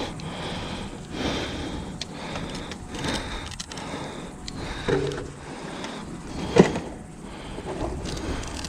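Scattered knocks and clicks from gear being handled and people moving about, over a low wind rumble on the microphone, with one sharp knock about six and a half seconds in.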